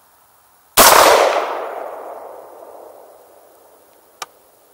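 A single rifle shot from a 20-inch-barrelled 5.56 NATO AR-15 about a second in, its report echoing and fading away over about two seconds. A short sharp click follows near the end.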